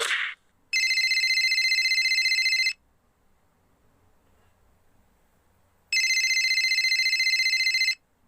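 Telephone ringing: two rings of about two seconds each, a few seconds apart, each a fast high trill. A brief falling swish comes at the very start.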